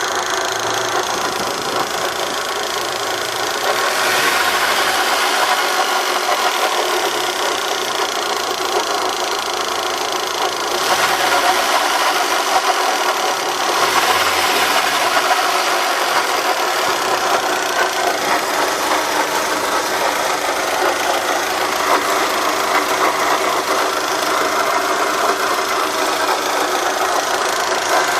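Volkswagen Golf Mk3 engine running in the engine bay, with an odd noise whose cause the owner cannot identify. The sound is steady and gets louder at about four seconds and again at about eleven seconds.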